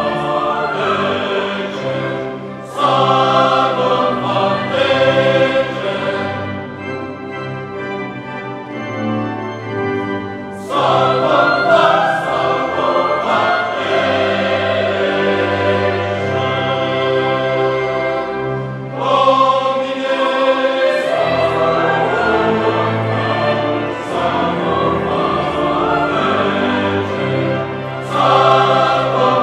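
Choir singing slow sacred music over sustained low held notes, in phrases that swell and fall back every several seconds, with a thinner, quieter passage about a third of the way through.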